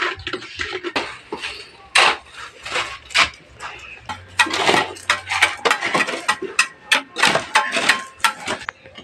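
Hard objects clinking and knocking together in a quick, irregular series of sharp strikes.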